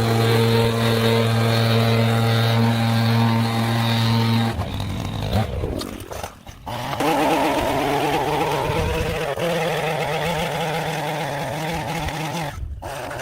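Small gasoline engine running at a steady high speed, which breaks off about four and a half seconds in. After a short gap a small engine runs again, its pitch wavering as if under changing load.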